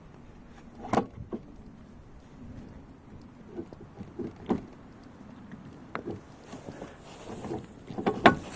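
Scattered sharp metal clinks and knocks with some scraping as a new electric pump motor is handled and fitted onto a snowplow's hydraulic unit.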